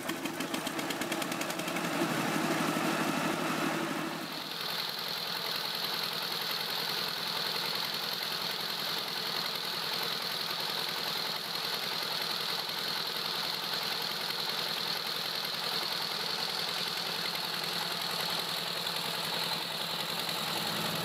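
Stationary engine running steadily as it drives a belt-driven generator that powers a newly installed submersible well pump for its first test. For the first four seconds it runs with a fast, even knock; after that the sound turns steadier and hissier, with a high whine.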